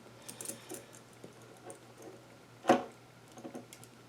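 Small metal key-ring hardware being handled as a knife is worked onto a split key ring: light metallic ticks and rattles, then one sharp click a little under three seconds in.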